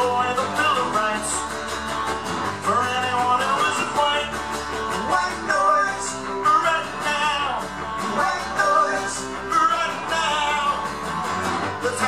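Live band music: a man singing lead over strummed guitars.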